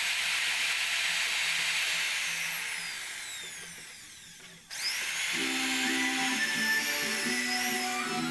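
Electric water-pump motor rigged as a sharpener, spinning down: its whine falls in pitch and fades, then cuts off abruptly about halfway through. Background music follows.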